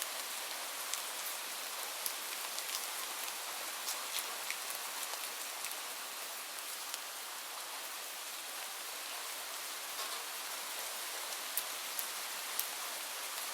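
Light rain falling steadily: an even hiss with scattered sharp ticks of individual drops hitting a surface.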